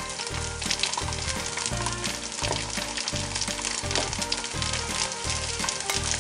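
Background music with a steady beat, over a continuous sizzling hiss like food frying.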